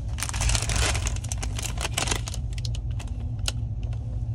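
Plastic snack packets crinkling and rustling as they are picked up and handled, densest in the first two seconds or so and then in scattered crackles. Under them runs the steady low rumble of the moving train.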